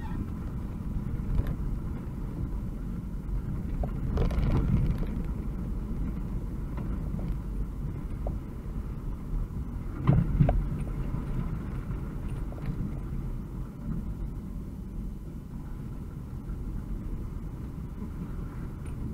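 UAZ 2206 van driving along a gravel track, heard from a dash camera inside the cab: steady engine and road noise, with louder jolts about four seconds in and again about ten seconds in.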